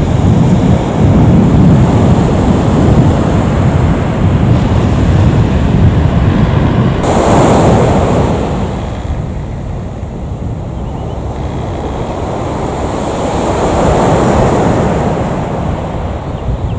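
Jet engine noise from an Airbus A321 climbing out after takeoff: a loud, steady rumble. About seven seconds in, the sound changes to the lighter, hissing run of another Airbus A321's engines at taxi power, which dips and then swells again near the end.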